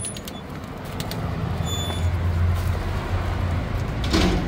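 A motor vehicle's engine running, its low hum growing louder about a second in, with a short burst of noise near the end.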